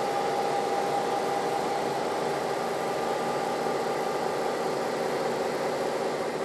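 Diesel locomotive engine running steadily, a continuous drone with a faint held whine over a hiss.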